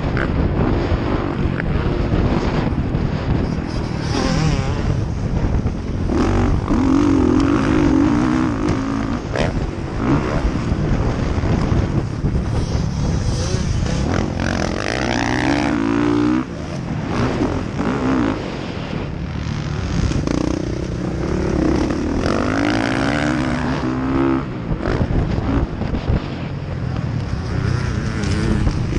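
Motocross dirt bike engine racing, its pitch repeatedly rising under throttle and dropping off as the rider shifts and backs off through corners and jumps.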